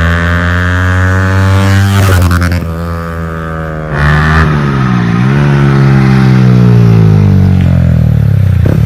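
Yamaha MT-15's single-cylinder engine running through a very loud aftermarket exhaust with no dB killer fitted, revving as the bike is ridden. The engine note sags and eases off for a couple of seconds about two seconds in, then pulls loud again and holds.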